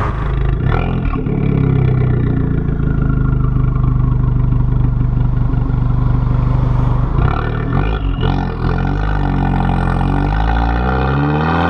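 Abarth 695 Biposto's turbocharged 1.4-litre four-cylinder through its Akrapovic exhaust, heard close at the tailpipe while driving: a steady note at constant revs, then the pitch climbs under acceleration over the last few seconds.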